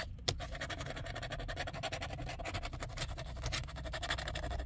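A scratch-off lottery ticket being scratched with an orange wooden pencil: quick rasping strokes, many a second, as the coating is rubbed off. The coating is hard to scratch.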